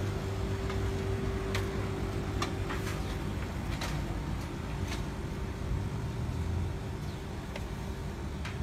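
Steady low machinery hum with a constant mid-pitched tone, broken by a handful of sharp clicks and knocks a second or so apart as metal panels and parts of the kitchen's air-cleaning equipment are handled.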